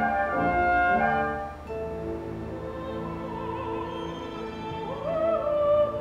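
Symphony orchestra playing: full, loud chords for the first second and a half, then quieter held string notes under a soprano voice singing with vibrato, swelling about five seconds in.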